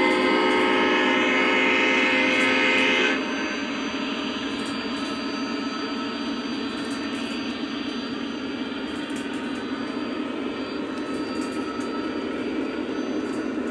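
A Lionel Legacy O-gauge diesel locomotive's onboard sound system blowing one long diesel horn blast that cuts off about three seconds in. Then the steady running of the locomotive's diesel engine sound over the rolling of the train's wheels on the three-rail track as the freight cars pass.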